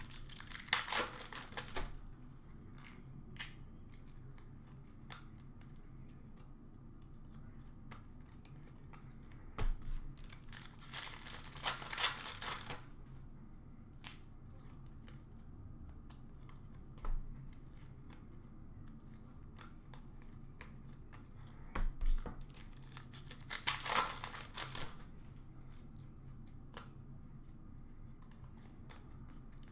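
Hockey card packs being torn open by hand: three longer stretches of wrapper tearing and crinkling, near the start, around the middle and again about three quarters through, with scattered short clicks and rustles of cards being handled in between.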